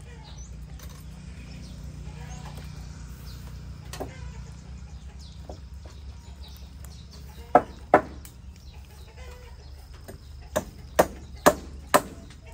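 Sharp chops of a knife on a cutting board: two close together a little past the middle, then a steady run of about two a second near the end.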